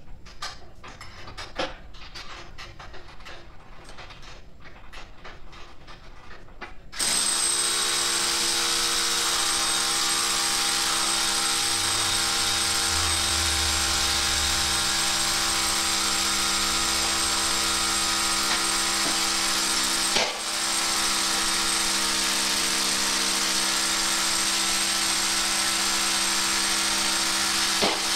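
Light clicks and taps of tools, then about seven seconds in a power tool's motor starts and runs steadily and loudly, with a brief dip about twenty seconds in.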